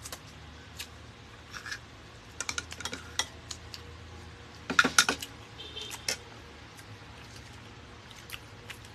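Spoons and ceramic bowls and plates clinking and tapping during a meal, in scattered clicks, with a louder clatter about five seconds in.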